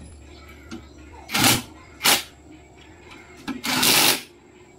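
Cordless impact wrench working a car wheel's lug nuts, firing in three bursts: two short ones about half a second apart, then a longer one near the end.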